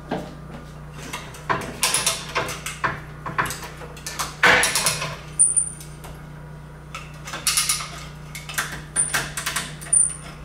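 Hand-operated cable come-along being ratcheted, its pawl and handle clicking and rattling in irregular bursts, with a few short high squeaks, as it pulls tension on two welded aluminum filler rods.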